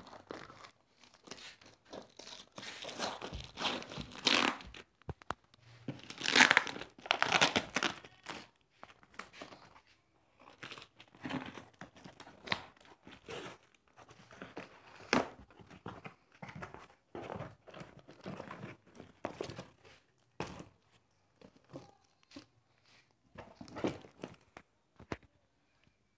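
Cardboard parcel being torn open by hand: packing tape and cardboard ripping in long bursts, loudest in the first third, then lighter rustling, crinkling of plastic wrap and scattered knocks as the contents are handled.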